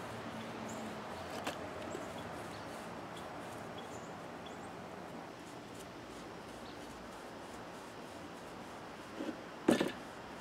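Quiet handling noises as wood stain is brushed onto a peeled wooden walking stick, with a faint click about a second and a half in and a sharp double knock near the end.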